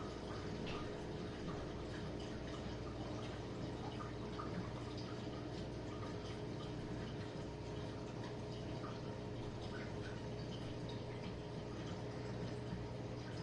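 Jenn-Air dishwasher running its quick wash cycle: a steady pump hum with water spraying and splashing inside the tub.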